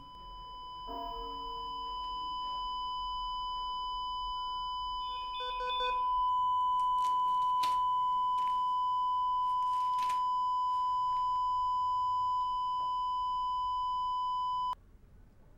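Patient heart monitor sounding a flatline: one continuous high electronic tone held for about fourteen seconds, the sign that the heart has stopped. A short run of pulsed beeps comes about five seconds in, with a few soft knocks, and the tone cuts off suddenly near the end.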